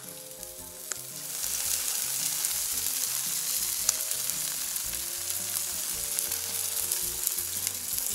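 Meat skewers sizzling on a wire grill over an open wood fire, with a few sharp pops; the sizzle swells about a second in and then holds steady.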